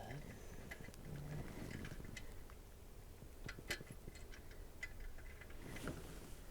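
Scattered light metallic clicks and ticks of bolts, a nut and a wrench being handled as an alternator belt tensioner assembly is fitted to its bracket, with a sharper click about midway.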